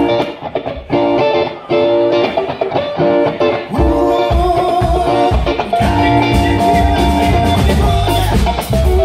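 Live rock band: an electric guitar plays choppy chords on its own, then bass and drums come back in about four seconds in and the full band plays on.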